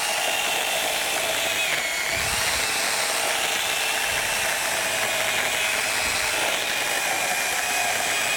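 Sun Joe 10-inch corded electric chainsaw with an 8-amp motor, running steadily while its chain cuts through a hardwood log. Its whine dips briefly in pitch about two seconds in, then recovers.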